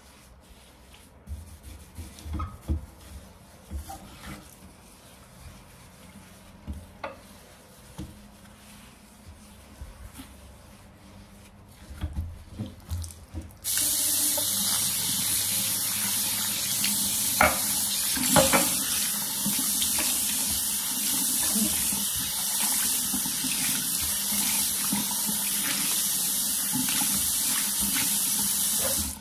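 A few light knocks and clatters of things being handled, then a water tap turned on about halfway through, running steadily into a sink with a strong even hiss.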